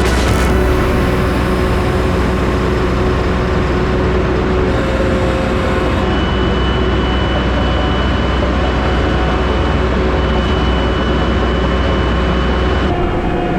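Engine running steadily with a strong, deep low drone.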